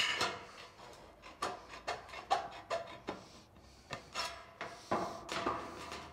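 Hand tin snips cutting painted sheet-metal roof flashing: a run of short crunching snips, roughly two a second, as a piece is trimmed off the end of a head wall flashing.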